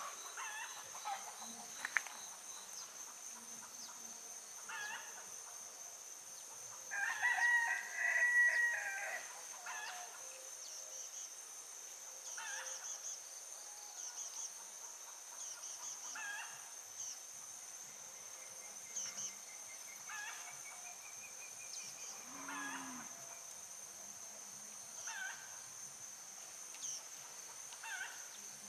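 A rooster crows once, about seven seconds in, the loudest sound here. Shorter calls come every second or two, over a steady high insect drone.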